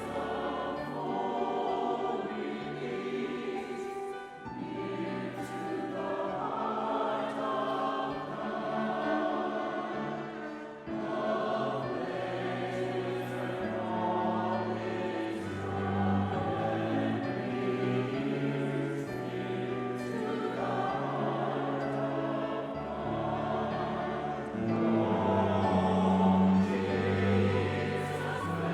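Choir singing a slow hymn in sustained chords that change every few seconds.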